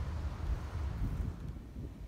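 Wind buffeting the microphone: an uneven low rumble that eases off in the second half.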